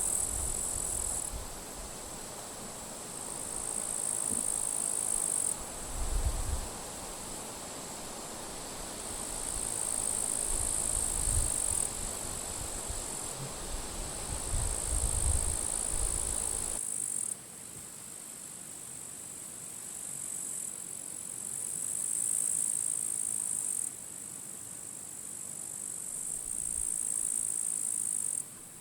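Grasshoppers stridulating in dry grass: high-pitched chirring phrases a few seconds long, one after another with short gaps. Underneath, wind gusts rumble on the microphone, and the wind noise drops away abruptly about two thirds of the way through.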